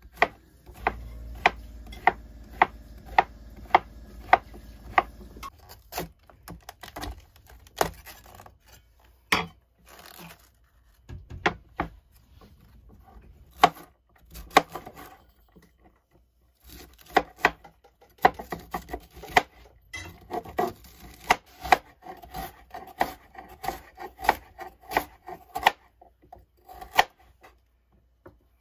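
Kitchen knife chopping vegetables on a wooden cutting board: zucchini, cauliflower and bell pepper. Knife strikes on the board come in runs, first about two or three even strokes a second, later quicker and uneven, with short pauses between runs.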